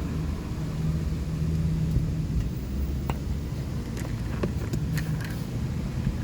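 A motor vehicle engine running with a steady low rumble, with a few faint light clicks and taps over it.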